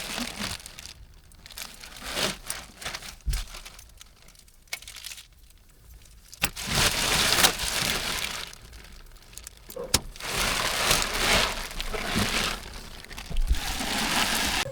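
Plastic wrapping being pulled, crumpled and torn, in several rustling stretches with a few sharp clicks.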